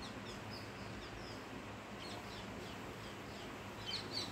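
Small birds chirping: a steady run of short, high chirps, louder for a moment near the end.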